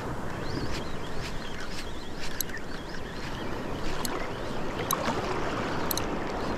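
Shallow seawater lapping and sloshing around a wader's legs, steady, with a few short sharp ticks.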